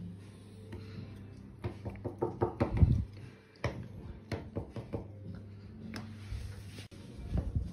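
Irregular knocks and taps as batter-filled silicone muffin cups are picked up, set down and shuffled on a baking tray, thickest in the first half with a few more near the end.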